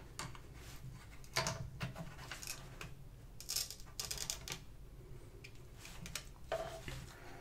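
Scattered light clicks and taps of plastic parts as a RealSense module and its cable are handled and fitted onto a Yuneec Typhoon H drone's body.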